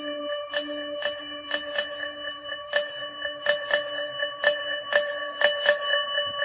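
Alarm ringtone: a bright, bell-like chime struck about three times a second in an uneven rhythm, its tones ringing on between strikes.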